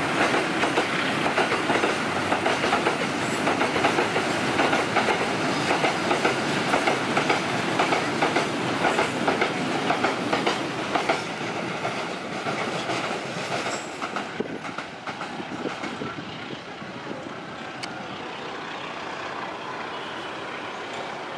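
Freight train of fuel tank wagons rolling past, the wheels clacking steadily over the rail joints. About two-thirds of the way through the clacking fades and the sound drops to a fainter rumble as the last wagons move away.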